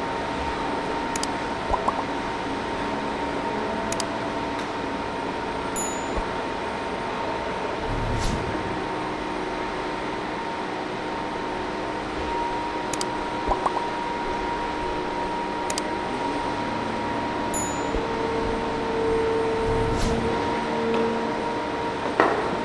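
Steady machinery hum with a few held tones, broken by scattered clicks and knocks and three brief metallic rings or clinks.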